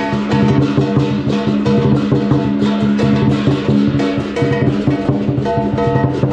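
Lion dance percussion: a large drum beaten in fast, dense strokes, with cymbals and a ringing gong sounding over it.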